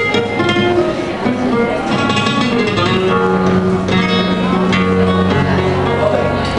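Flamenco guitar played live on an acoustic guitar: a run of plucked notes, some left ringing, with a few brisk strummed strokes.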